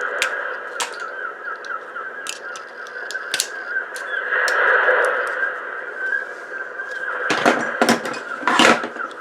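Many seagulls calling and squawking without a break, with scattered sharp clicks throughout and three louder, harsh sounds close together near the end.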